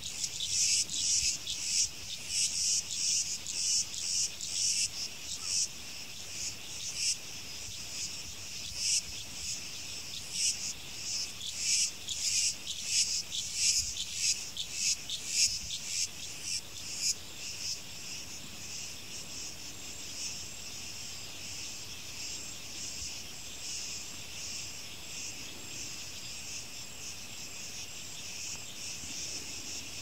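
Chorus of insects shrilling in a high band, pulsing rapidly for the first half and then settling into a steady, even drone from about seventeen seconds in.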